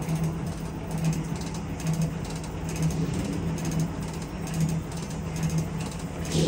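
Stanko 7A420 vertical slotting machine running with its table under power feed at a raised feed rate: a steady mechanical hum that pulses about once a second, with faint ticking over it.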